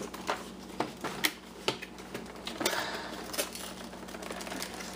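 A cardboard phone retail box being handled and its flap pulled open by hand: irregular clicks, taps and paper-cardboard rustles, with a longer scraping rustle about three seconds in.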